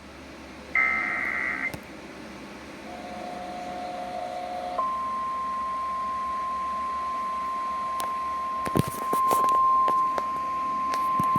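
Emergency Alert System tones: a burst of the screeching two-pitch SAME header data about a second in, a lower steady tone for a couple of seconds, then from about five seconds in the steady single-pitch 1050 Hz Weather Radio warning alarm tone, with crackles of static over it near the end. The header and alarm tone signal that a weather warning is about to be read.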